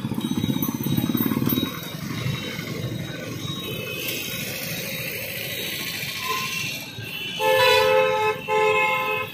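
Night street traffic: a vehicle engine pulses close by for the first second and a half, then steady traffic noise. Near the end a vehicle horn honks twice, two long blasts.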